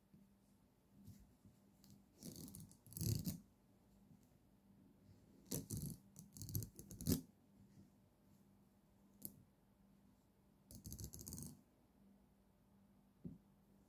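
A pen scratching and rattling against the paper and spiral binding of a notebook, in three short clusters, with a couple of single clicks in between.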